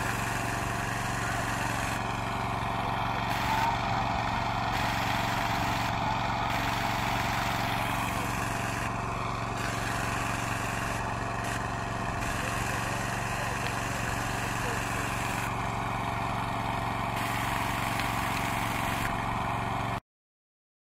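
An engine running steadily at constant speed, then cutting off abruptly near the end.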